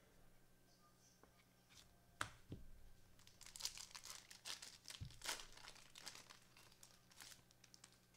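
Trading-card pack wrapper being torn open and crinkled by hand: a couple of sharp snaps a little over two seconds in, then a run of crackling crinkles.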